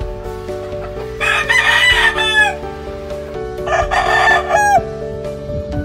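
A gamefowl rooster crowing twice, each crow lasting a little over a second and ending with a drop in pitch, over steady background music.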